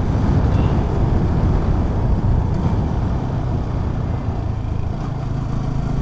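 Motorcycle engine running steadily under load while climbing a hill road, with a rush of wind and road noise over it.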